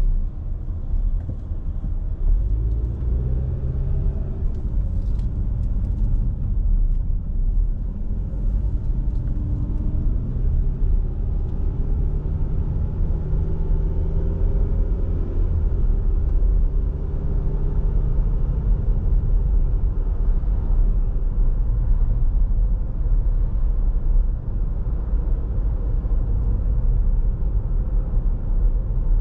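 A car driving, its engine and road rumble heard from inside the cabin as a steady low rumble. A few seconds in, the engine note rises as the car speeds up, then settles into steady cruising.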